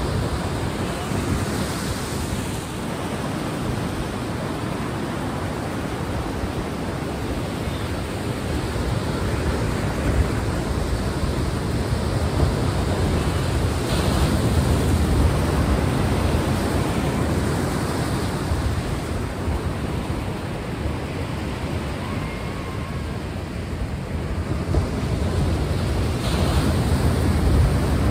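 Recorded sea sound of ocean waves, a continuous wash that swells and eases slowly every few seconds.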